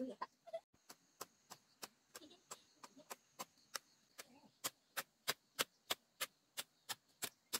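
A rapid, evenly spaced series of sharp clicks or taps, about three a second.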